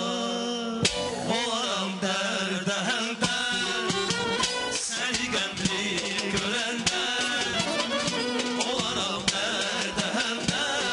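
Live Azerbaijani folk band music from tar, kamancha, clarinet and accordion, playing a wavering, ornamented melody over a quick beat of sharp strikes. A new phrase starts with a strike about a second in.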